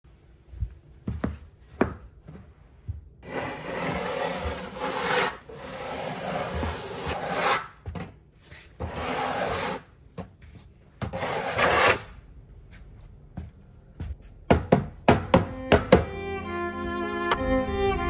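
Snow shovel scraping across a snowy wooden deck in four long strokes of a second or two each, with scattered sharp knocks before and after. String music comes in near the end.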